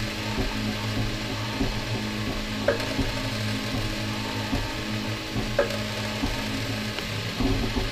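Ultimaker 3D printer printing, its stepper motors buzzing and whirring as the print head moves, over a steady hum. A short chirp comes a little under three seconds in and again about three seconds later, as the head changes direction.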